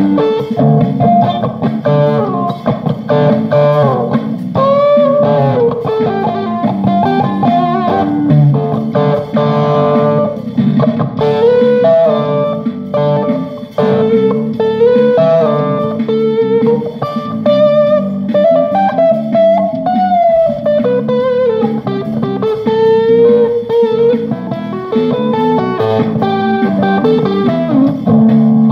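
Guitar being played in a continuous improvised jam: a single-note line that slides and bends in pitch, over steady lower notes sounding underneath.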